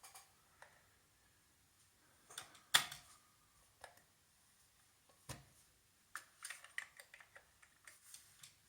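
Faint, scattered clicks on an Amiga 1200's keyboard and mouse, two of them louder, then a quick run of keystrokes near the end.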